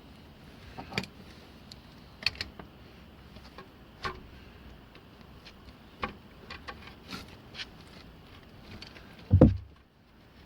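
Scattered light clicks and taps of parts and tools being handled while an ABS sensor is fitted into a car's front wheel hub, with one dull, low thump near the end.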